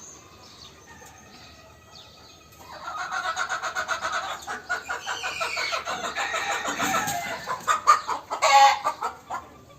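A flock of chickens clucking and calling over one another, starting about three seconds in and getting louder near the end.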